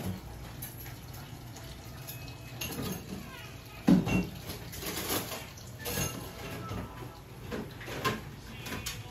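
Dishes and eating utensils clattering and clinking as they are handled, a series of separate knocks, the loudest about four seconds in.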